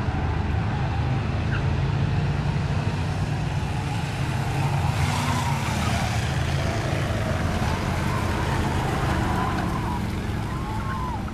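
A pack of figure-8 train race cars running together, their many engines making a dense, continuous drone, with a few brief squeals in the second half.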